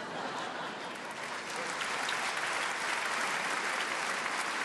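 Theatre audience applauding and laughing after a punchline, the applause growing louder over the first two seconds and then holding steady.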